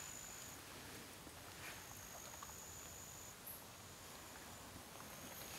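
Quiet outdoor ambience with a faint, thin, high steady tone that starts and stops several times, each stretch lasting about a second or so, and a few soft clicks.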